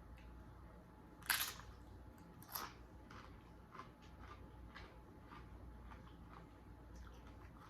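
Two loud crunching bites into crisp food, about a second apart, followed by quieter chewing clicks.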